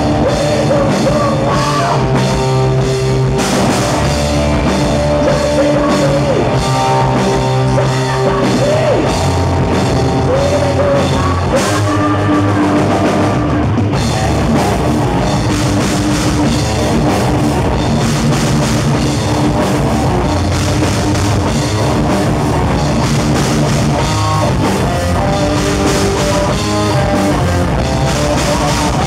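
Live hard rock band playing loud and steady: distorted electric guitars, bass guitar and a drum kit.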